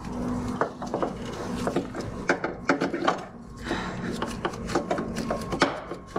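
Metal parts and hand tools clicking, knocking and scraping in irregular, uneven taps while an engine mount is worked into place under the car.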